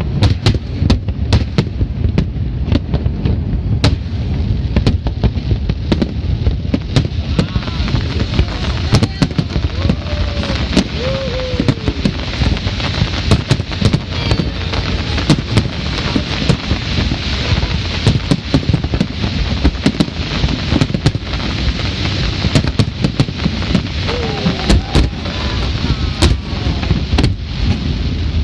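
Aerial fireworks display: a dense, continuous barrage of booming shell bursts and sharp crackling bangs, over a steady low rumble, with crowd voices beneath.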